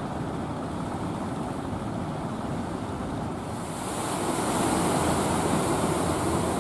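Waves and surf rushing, with wind on the microphone; the rush gets louder and hissier about halfway through.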